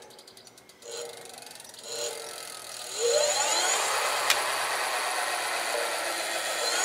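E-bike rear hub motor spinning the lifted back wheel under the thumb throttle: a couple of short blips, then a rising whine about three seconds in as it spins up, running steadily at speed after that, with one sharp click in the middle. This is the first throttle test of the freshly wired conversion kit.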